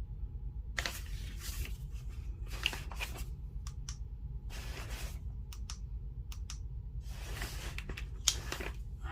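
Hands handling a washing machine's motor capacitor and its wires: short rustles and a few sharp clicks, over a steady low hum.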